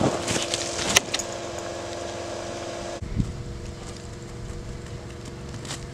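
A small engine running at a steady pitch, with a few sharp knocks in the first second; about three seconds in the sound changes abruptly to a quieter, steady engine tone.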